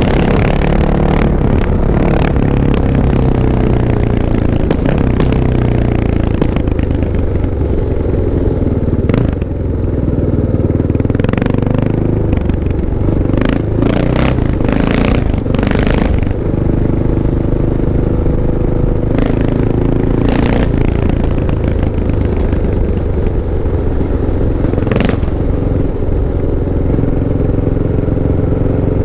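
Kawasaki KLX 650's single-cylinder four-stroke engine running, its pitch drifting up and down and then holding steadier. Many short, sharp clacks cut across it, most of them in the middle stretch.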